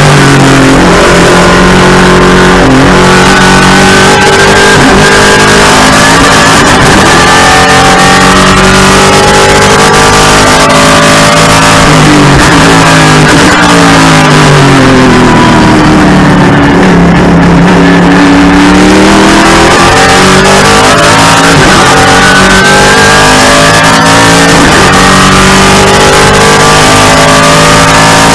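A TA2 race car's V8 engine at racing speed, heard from inside the cockpit, very loud. Its pitch climbs through the gears and drops on each downshift. About halfway through it winds down over several seconds, then builds again.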